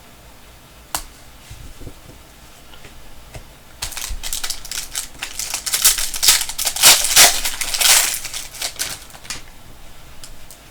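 Plastic wrapper of a trading-card pack crinkling and crackling as it is handled and torn open, with a single click about a second in and rapid crackling from about four seconds in for some five seconds.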